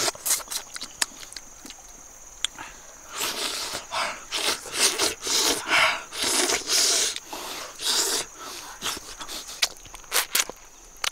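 Close-up eating noises from people eating cooked fish: lip smacks and mouth clicks, then a run of loud breathy blows and slurps on the hot fish from about three to eight seconds in, then more smacking.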